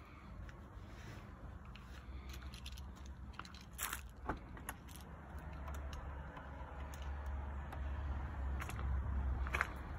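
Footsteps crunching on gravel with scattered clicks and light rattles, and a low hum building from about halfway through as the Land Rover Discovery's tailgate rises open.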